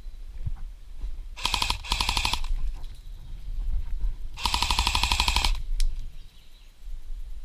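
Airsoft rifle firing two full-auto bursts of rapid, evenly spaced shots over a motor whine, each about a second long, the second the louder.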